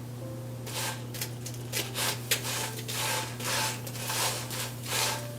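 Paratha frying in oil on a hot tawa, with a series of short, irregular scraping strokes over it.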